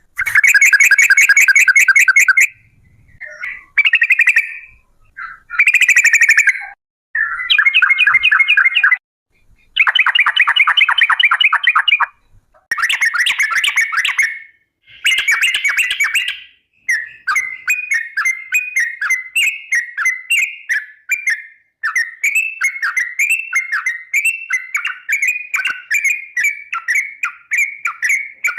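Yellow-vented bulbul (trucukan) singing long rolling 'ropel' phrases: rapid trills of about two seconds each with short pauses between them, then from about halfway through a continuous run of quick chattering notes.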